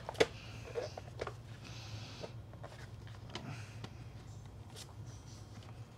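Plastic housing of a Miele Triflex HX1 cordless vacuum being handled with gloved hands: one sharp click just after the start, then scattered lighter clicks and knocks amid glove rustling.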